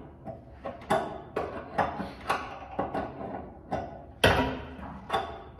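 Short metal clicks and knocks, a few each second, with a louder knock about four seconds in, as a crescent wrench tightens the flex water-line nuts on an electric water heater's fittings.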